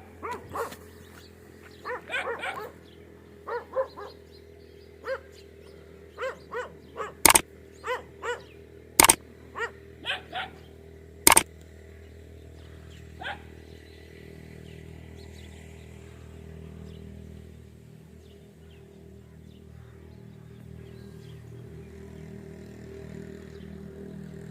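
Dogs barking in a run of short, repeated barks, with three sharp, very loud knocks among them; after about eleven seconds the barking stops and only a steady low hum remains.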